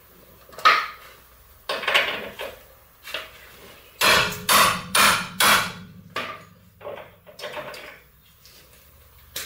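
Hammer blows on metal at a truck's front suspension while a sway bar link is being knocked loose: a few scattered clanks, then four hard strikes in quick succession about four seconds in, followed by lighter knocks. A low steady hum starts with the hard strikes.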